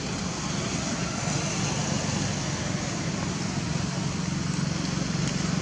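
A motor vehicle engine running: a steady low hum under broad noise, slowly getting louder.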